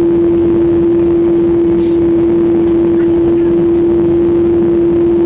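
Cabin noise of an Airbus A330-300 airliner taxiing after landing: the jet engines at idle give a steady, loud rushing rumble with one unchanging hum held over it.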